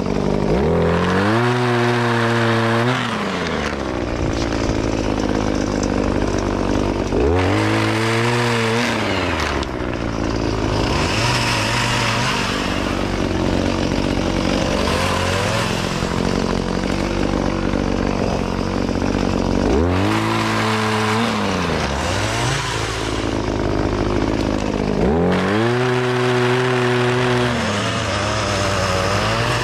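Gas pole saw's small two-stroke engine running steadily, revving up and falling back about four times while it saws through fruit-tree branches.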